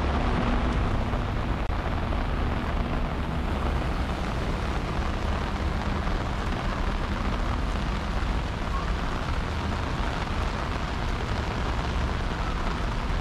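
Steady rain falling: a constant, even hiss with a deep low rumble under it, and a faint low hum over the first few seconds.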